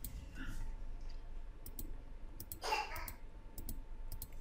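A series of quick computer-mouse clicks, about eight in all, as figures are entered on an on-screen calculator, with a brief vocal sound about two and a half seconds in.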